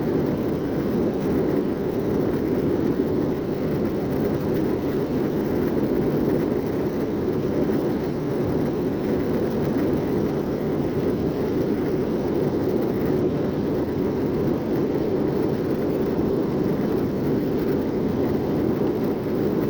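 Steady cabin noise inside an Airbus A321-231 in flight: the deep hum of its IAE V2500 jet engines and rushing airflow around the fuselage, heard from a window seat behind the wing.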